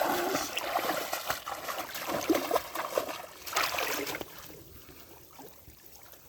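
Pond water splashing and trickling. It dies down about four seconds in, leaving only faint drips.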